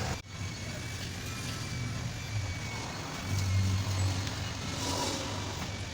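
Steady motor-vehicle noise: a low engine hum under an even background rush, swelling briefly about three seconds in.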